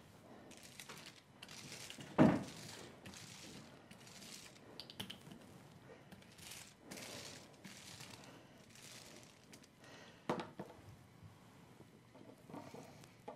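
Hand brayer rolling ink over a textured aluminium-foil printing plate: faint, repeated soft swishing and crinkling strokes. A sharp knock about two seconds in, and a softer one near ten seconds.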